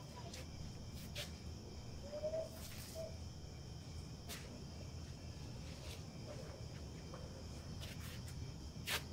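Quiet outdoor ambience: steady high insect-like chirring over a low rumble, with scattered sharp clicks and a couple of short chirps two to three seconds in. The sharpest click comes near the end.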